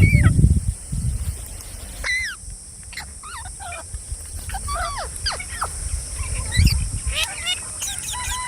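Green parrot giving a string of short squawks and chirps that slide up and down in pitch. A dull low thump comes at the start and another about two-thirds of the way in.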